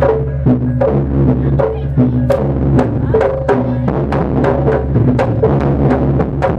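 Jaranan (kuda lumping) gamelan accompaniment: drum strokes and struck, tuned gong-chime notes in a fast, steady rhythm of several strokes a second, over a continuous low drone.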